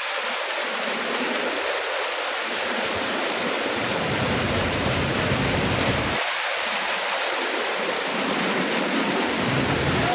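A small waterfall splashing into a creek: a close, steady rush of falling water. Its flow is full from recent rain, where it has usually been only a trickle.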